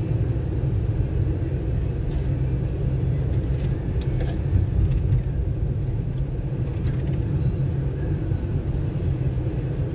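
Steady road and engine rumble heard inside the cabin of a moving car.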